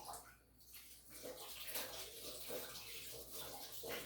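Faint running water.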